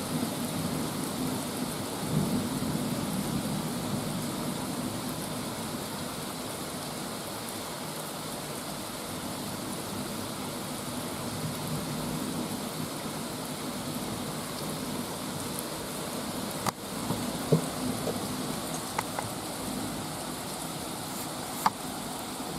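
Steady rain of a thunderstorm, with a low rumble of thunder swelling about two seconds in, and a few sharp clicks near the end.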